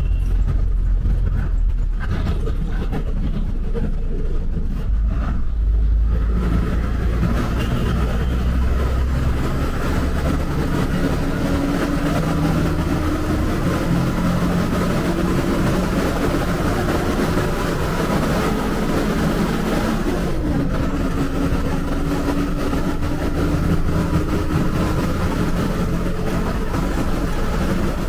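Bus on a highway: the engine runs with a steady low rumble under tyre and wind noise. About six seconds in the hiss swells as the bus gathers speed, and the engine note climbs slowly twice as it accelerates.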